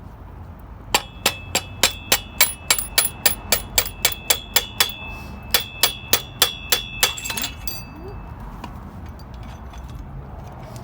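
A hammer striking metal in a rapid run of about two dozen blows, roughly four a second with a short pause midway, each blow with a bright metallic ring. The blows are knocking the remaining parts out of a BMX wheel hub.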